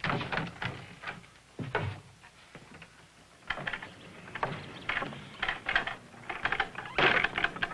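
Irregular knocks, scuffs and clatter of boots and a wooden wagon door as a man moves about in the wagon's doorway. The clatter comes sparsely at first and grows busier over the last few seconds.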